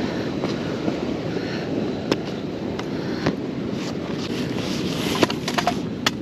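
Wind rushing over the camera microphone while riding a motorcycle, a steady low rumble, with a few sharp clicks scattered through it and a quick cluster of them near the end.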